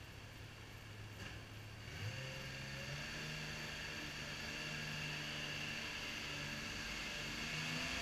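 Unimog 404 fire truck's petrol straight-six engine idling, then picking up to a higher steady speed about two seconds in as the truck pulls away and drives out of the station bay.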